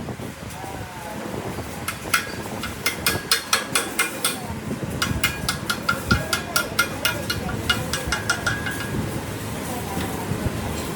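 Rapid light hammer taps on steel, several strikes a second, each with a short metallic ring, in two runs of a few seconds.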